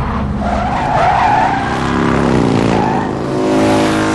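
Car tyres squealing as a Mercedes saloon speeds along a wet street. About halfway through, a motorcycle engine revs hard and its pitch climbs as the bike closes in fast.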